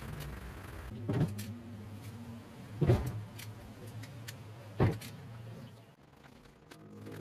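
Three dull thumps about two seconds apart over a low steady hum.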